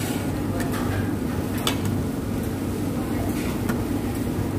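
Steady low hum of restaurant background noise, with a few light clinks of utensils against dishes and a metal hot pot.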